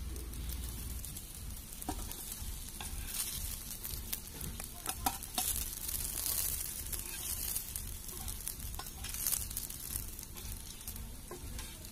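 Paarai fish steaks shallow-frying in oil in a cast-iron pan, a steady sizzle. A few light clicks and scrapes come from a steel slotted spoon on the pan as the pieces are lifted out.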